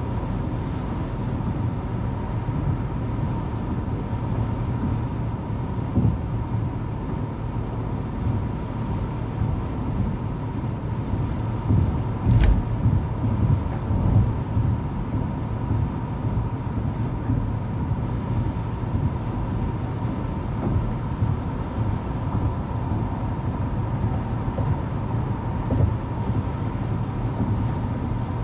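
Steady road and engine noise heard inside a car cruising on a highway, mostly a low tyre rumble with a faint steady tone above it. A brief sharp click comes about twelve seconds in, among a few louder bumps.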